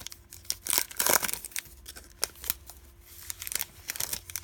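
A football trading-card pack wrapper being torn open and crinkled by hand: irregular crackling and ripping, loudest about a second in.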